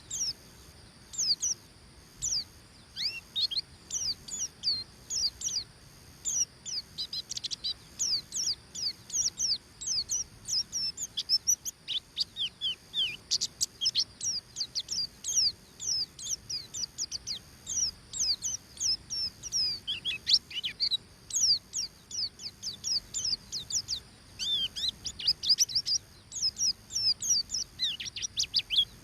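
White-eye (pleci) singing a rapid ngeriwik song: an unbroken stream of short, high chirps, each sweeping steeply down in pitch, several a second, with denser clusters here and there. It is the challenging song used to goad other white-eyes into singing.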